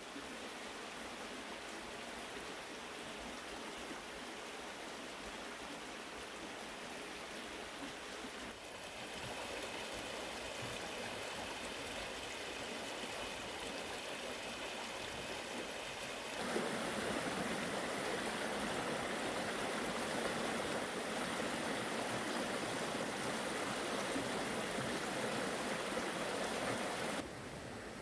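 A mountain valley stream running steadily. The rush of water grows louder in two steps, about a third of the way in and again past the halfway mark, then drops back near the end.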